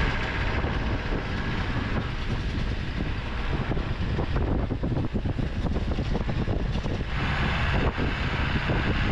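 Pickup truck on the move: steady engine and road noise with wind on the microphone and scattered light knocks. The hiss grows brighter about seven seconds in.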